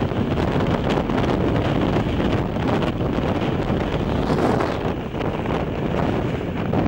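Moving regional train heard through an open window, with steady running noise and wind buffeting the microphone. Rapid irregular clatter runs through it.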